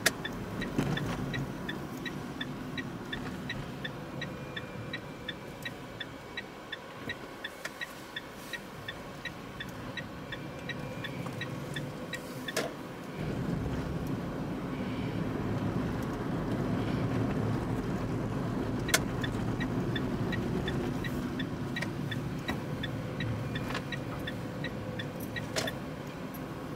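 Tyre and road noise inside an electric car's cabin, with the turn-signal indicator ticking about twice a second for the first twelve seconds and again near the end. The road noise grows louder about thirteen seconds in.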